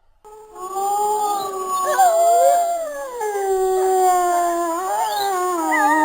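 Wolves howling, several long overlapping howls that slowly rise and fall in pitch, starting about half a second in.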